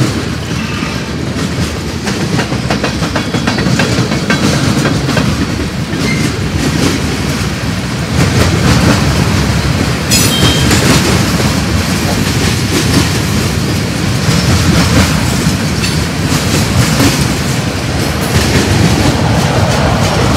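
Freight train cars (tank cars, boxcars and covered hoppers) rolling past, their steel wheels on the rail making a loud, steady rumble full of rapid clattering clicks.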